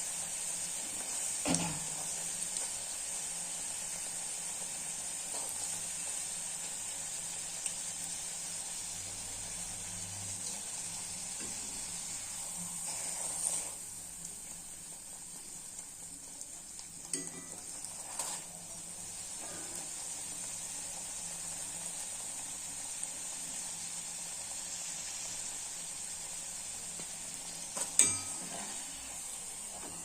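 Luchis (small wheat puris) deep-frying in hot oil in a kadai: a steady sizzle. A few clinks of a utensil against the pan come through, the sharpest near the end.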